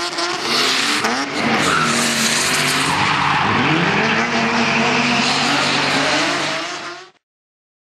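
Drift car's engine revving up and down while its tyres squeal through a long sideways slide. The sound fades and stops suddenly about seven seconds in.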